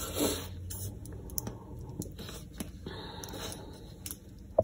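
A thin plastic water bottle being handled: its cap twisted off and the plastic crackling, with scattered small clicks and taps.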